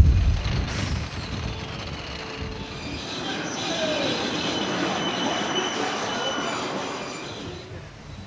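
Ride machinery squealing and grinding: high, thin metallic squeals over a steady mechanical rumble, swelling in the middle and fading near the end.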